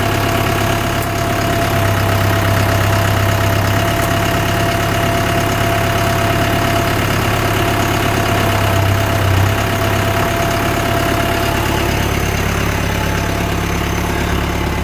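Branson compact tractor's diesel engine running steadily at idle, with a thin steady whine over the hum that fades out about eleven seconds in.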